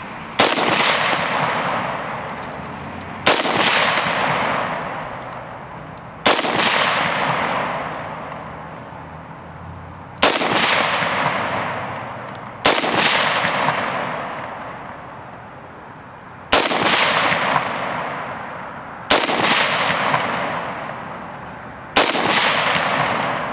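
AR-15 rifle fired eight times, single aimed shots a few seconds apart, each crack followed by a long echo that dies away over a couple of seconds.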